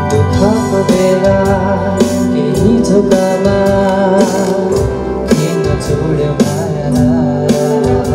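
Live band playing a Nepali song: acoustic guitars, bass guitar, keyboard and saxophone, with a wavering melody line above a steady bass.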